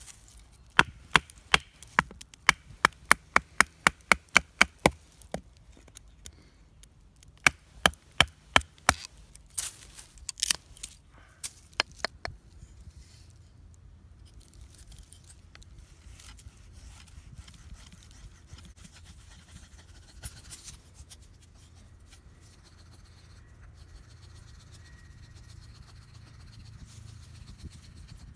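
Knife blade working a split stick of wood to make a feather stick: two runs of sharp wooden clicks, about four a second, in the first twelve seconds, then only faint scraping.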